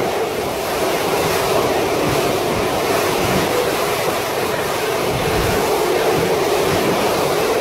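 Tornado-strength wind and driving rain, a loud steady rush that never lets up, with gusts buffeting the microphone.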